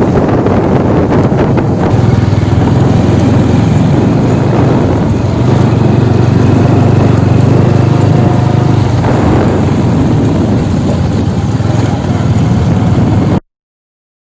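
A motor vehicle running steadily, with a low engine hum under heavy noise. It cuts off suddenly near the end.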